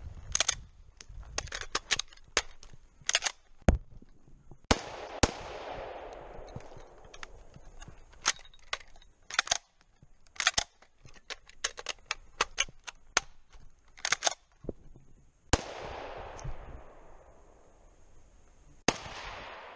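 Rifle shots from semi-automatic .308 Winchester rifles, echoing through the forest. A few loud shots, about five, fifteen and nineteen seconds in, each trail a long fading echo, and many shorter sharp cracks and clicks fall in between.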